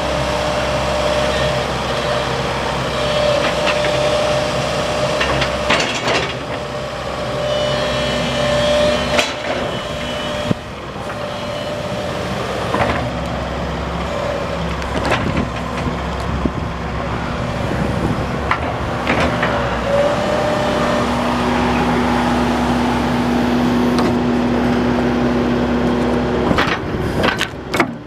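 Crawler excavator at work: the diesel engine runs steadily under hydraulic whine, with scattered knocks and clanks. A steadier, higher whine holds for several seconds about two-thirds of the way through.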